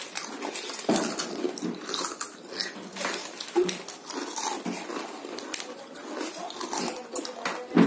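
Several people biting and chewing potato chips fast, with a constant run of irregular crisp crunches.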